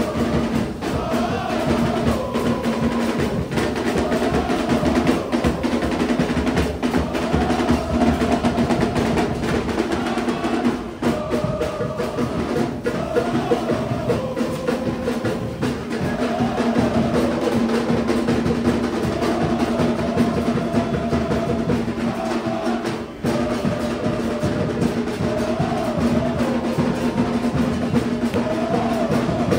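Music with busy drums and percussion, a wavering melody over a steady low note.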